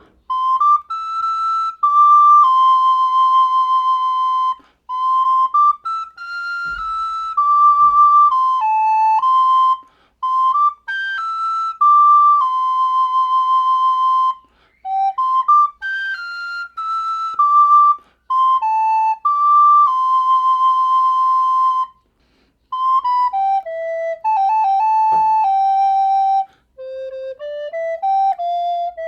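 Soprano recorder playing a gospel song melody solo, one note at a time, in phrases separated by short breathing pauses.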